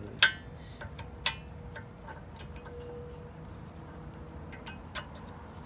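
Sharp metallic clicks and clinks of new rear brake pads and their metal clips being slid into the caliper bracket. The loudest is about a quarter second in, another about a second later, and one near the end.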